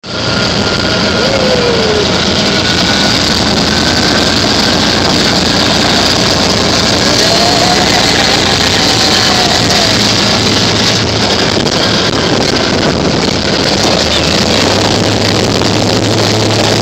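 Tomcar off-road vehicle under way over rough desert ground, heard from inside its open cab: a loud, steady engine drone mixed with wind and driving noise, its low note growing stronger in the last few seconds.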